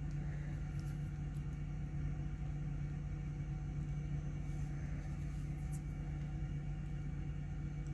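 Steady low hum, with a few faint ticks of metal lock picks working in a padlock's keyway.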